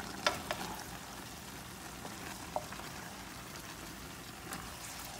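Eggplant and minced chicken adobo sizzling steadily in butter in a nonstick pan, lid off, with two quick clicks of a spatula against the pan near the start.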